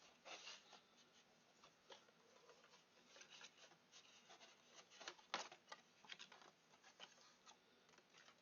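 Faint rustling, rubbing and light clicks of cardboard and paper packaging being handled as a pop filter's box is opened, with one sharper click a little past halfway.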